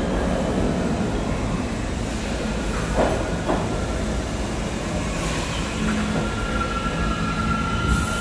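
R68 subway train running: a steady rumble of wheels on rail, with two sharp knocks about three seconds in. A steady high wheel squeal sets in about six seconds in.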